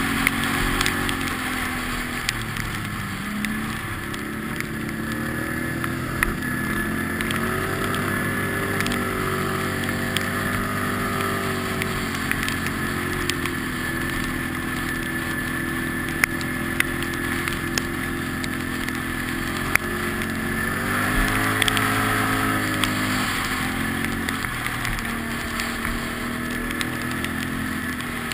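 Quad bike (ATV) engine running while riding a dirt trail, its pitch rising and falling several times as the throttle opens and closes. Occasional sharp clicks and knocks come through over the bumps.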